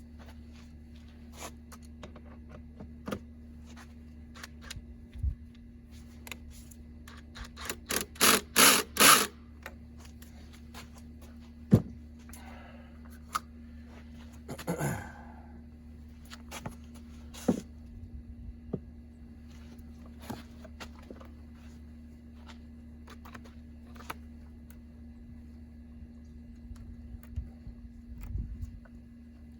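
Scattered clicks, taps and knocks of hand work on a car's seat belt and interior trim, with a quick run of five or six sharp clicks about eight seconds in and a scraping sound a little later, over a steady low hum.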